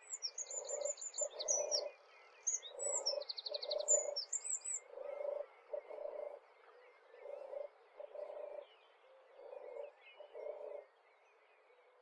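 European turtle dove singing its soft, purring 'tur-tur' song: the purrs come in pairs, five pairs about two seconds apart, ending about a second before the end. Higher, quicker chirps from another bird sound over the first few seconds.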